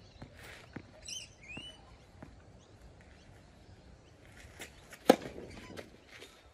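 A tennis serve on a clay court: a few light ball bounces and shoe scuffs on the clay, then one sharp crack of the racket striking the ball about five seconds in, the loudest sound.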